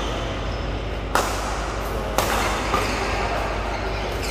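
Badminton rackets striking a shuttlecock during a doubles rally: two sharp hits about a second apart, each ringing briefly in the hall, over steady background noise.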